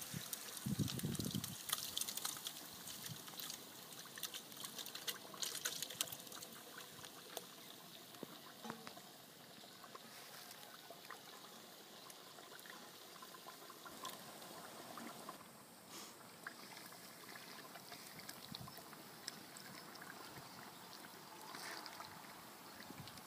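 Chopped roasted peppers sliding wetly from an enamel bowl into the hot oil and onions of a cauldron, with splashing and plopping for the first few seconds, then the pot's contents simmering faintly over a wood fire. A wooden spoon stirs the mixture near the end.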